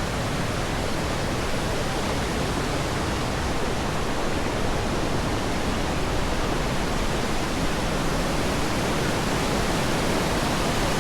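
Rushing white water of a cascading mountain creek: a loud, steady, unbroken rush.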